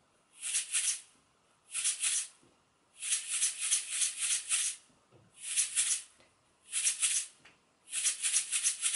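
A plastic tub of cake sprinkles shaken like a maraca: short rattling bursts with silent gaps, played as a syncopated shaker rhythm that rests on the counted beats. There is a longer run of rattles about three seconds in and again near the end.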